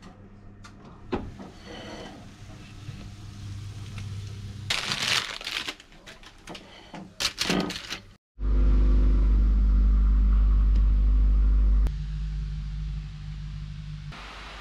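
Scattered kitchen handling sounds: clicks and short scrapes around a plate. About eight seconds in, a loud steady low hum starts suddenly. It drops to a quieter, lower hum a few seconds later.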